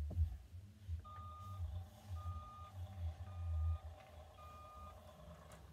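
Electronic sound effect from a toy truck: four evenly spaced reversing-style beeps about a second apart over a steady electronic engine hum.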